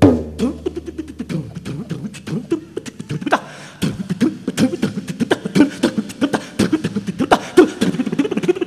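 Rapid vocal percussion: drum syllables spoken in a fast, dense rhythm, with short sliding pitches between the strokes.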